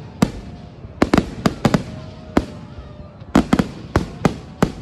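Aerial fireworks bursting overhead: a rapid run of sharp bangs in irregular clusters, a single bang, then a quick volley of about half a dozen, a lone bang, and another volley near the end.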